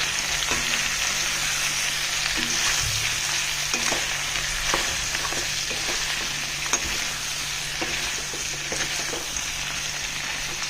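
Pork frying in a karai with onion and a freshly added garlic-chilli paste, sizzling steadily. A spoon stirs it, with short clicks and scrapes against the pan now and then.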